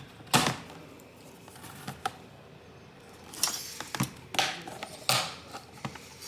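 Plastic clicks and snaps from a Lenovo ThinkPad T495s display trim and panel being pried loose with a plastic pry tool: a handful of sharp separate clicks, with a short scraping rustle about three and a half seconds in.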